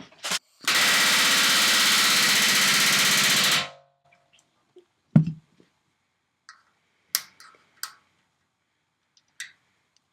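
Pneumatic rivet gun hammering an aluminum rivet into the RV-7 horizontal stabilizer for about three seconds, a loud rapid rattle, after a brief short burst. It is followed by a few light clicks and knocks of tools and metal parts.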